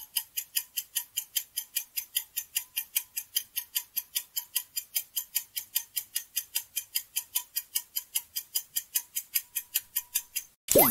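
Countdown-timer sound effect: rapid, even clock ticks, about four or five a second, running through the guessing time. Near the end the ticking stops and a short, louder sweeping sound effect marks time up.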